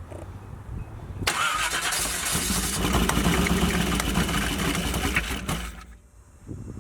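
Car engine being cranked by its starter while someone presses the gas, for about four and a half seconds before it stops. The engine is not staying running after the roller cam install.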